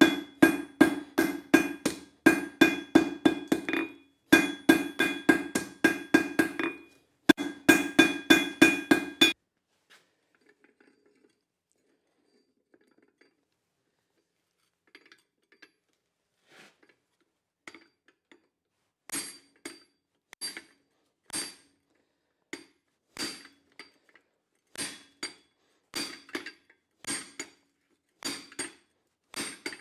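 Hand hammer striking a hot steel bar on an anvil while drawing out a round taper: four quick bursts of rapid blows, about four a second, with the anvil ringing. After a pause of several seconds, lighter, slower blows resume, roughly one a second.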